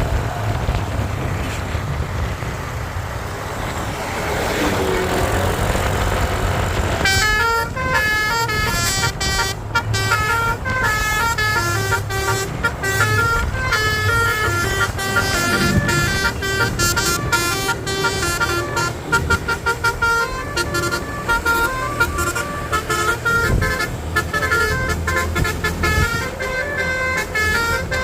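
Bus engine and road noise, then from about seven seconds in a Basuri multi-tone 'telolet' air horn plays a quick melody of stepping tones that runs on over the engine.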